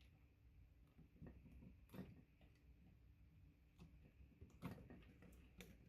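A few faint, sharp clicks of a punch-down tool seating network cable wires into a patch panel's slots, one wire at a time.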